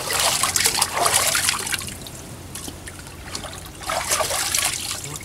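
Seawater splashing and trickling as pieces of cut fish are rinsed by hand over the side of a wooden boat, in two bouts: about the first two seconds, then again near the end.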